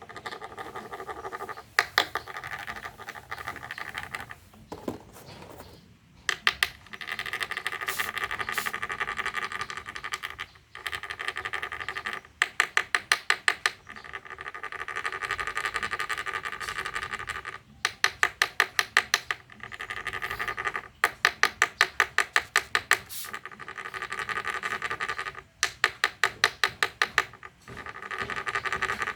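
Rasping buzz in bouts, steady stretches broken by runs of rapid clicks, typical of the notched stick rubbed against a beetle-fighting log to spur rhinoceros beetles to fight.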